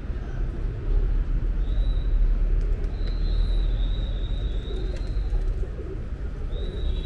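Pigeons cooing over a steady low rumble of city traffic. A thin, high whistling call sounds from about two to five seconds in, and again near the end.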